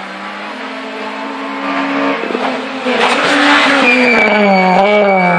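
Rally car engine at high revs, growing louder as the car approaches, then its revs falling over the last second or so as it slows for the corner. A steady high-pitched squeal, likely from the tyres, joins in the second half.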